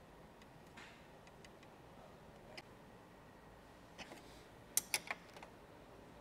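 Faint, scattered clicks and taps from a small hand ratchet and metal hardware as a fog light's bracket bolts are tightened, with a quick run of three sharper clicks just before five seconds in.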